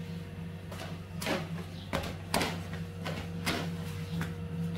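A series of short knocks and scrapes, about seven, spaced irregularly over a steady low hum.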